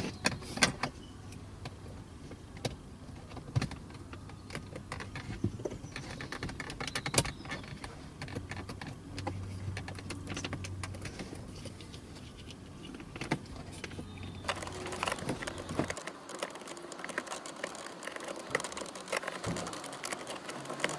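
Small clicks and rattles of plastic wiring plugs being handled and pushed into a car's headlight switch, with a low steady hum that stops about sixteen seconds in.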